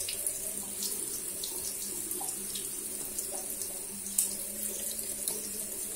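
Water running steadily from a tap into a sink, with a few faint clicks.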